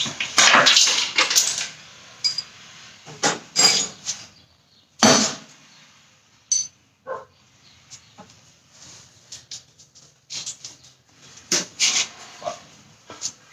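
Metal tools and car suspension parts clanking and knocking in irregular bursts, with quieter pauses between them.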